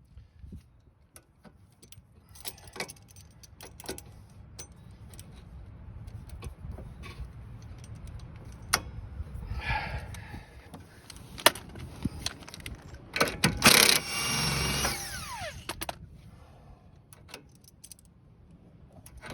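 Hand tools working on a seized rear sway bar link nut and stud: scattered metal clinks and ratcheting, building to a louder burst of metallic rattling and grinding about 13 seconds in that ends in a brief falling squeal.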